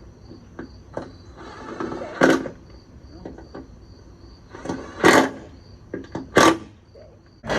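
Crickets chirping in a steady pulsing rhythm, with a short scrape and three loud sharp knocks, about two, five and six and a half seconds in.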